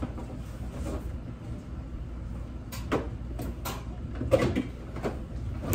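Things being moved about inside an open refrigerator: a run of short knocks and clatters starting about three seconds in, over a steady low hum.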